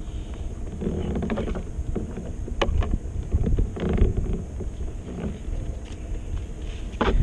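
Knocks, clicks and rattles of fishing gear being handled in a plastic kayak, over a low rumble of wind on the microphone, with one sharp click about two and a half seconds in.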